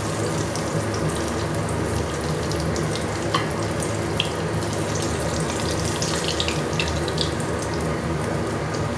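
Pieces of basa fish coated in egg and corn flour deep-frying in hot mustard oil: a steady sizzle with scattered sharp pops and crackles.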